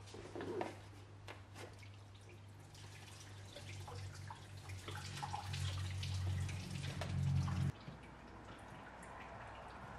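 Engine coolant pouring and dripping out of a coolant hose pulled off a BMW M20 engine's thermostat housing, with a few light clicks as the hose is worked loose. The running liquid grows louder, then cuts off suddenly about three-quarters of the way through.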